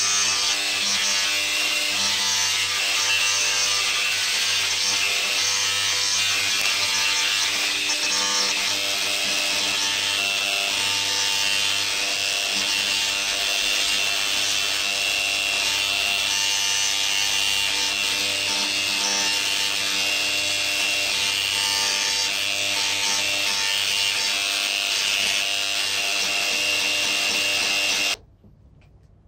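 Electric arc welding a bead along a steel plate joint: the arc sizzles steadily with a hum under it, then stops abruptly about a second before the end as the arc is broken.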